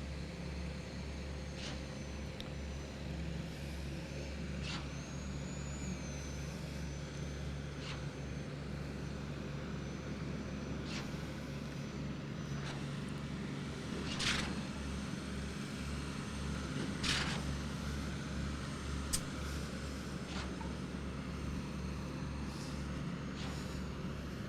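Heavy diesel engine of a concrete pumping rig running steadily during a pour. A few short hisses cut in, the clearest about two-thirds of the way through.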